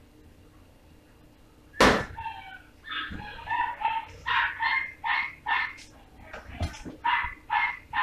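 A sharp knock about two seconds in. Then an animal starts calling in short, high, repeated calls, about three a second.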